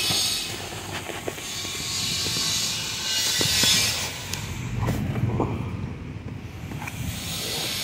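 Handling noise from a handheld phone being moved about: rubbing and knocking on its microphone, with swelling hiss and a few scattered clicks over a low rumble.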